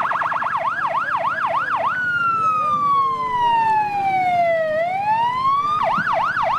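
Emergency vehicle's electronic siren changing through its patterns. It opens with a very fast warble, then yelps at about three sweeps a second. About two seconds in it drops into one long slow falling-then-rising wail, and near the end it goes back to the fast yelp.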